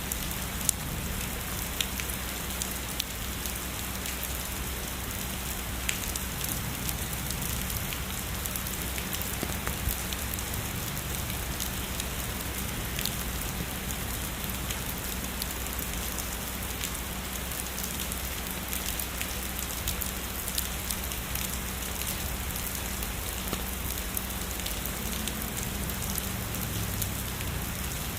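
Steady heavy rain falling on a surface, with many individual drops tapping sharply throughout.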